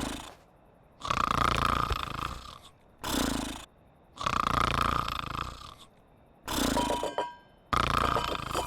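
Cartoon snoring in slow rhythm: a long rasping snore on each breath in, then a shorter, lower sound on the breath out, repeating about every three seconds.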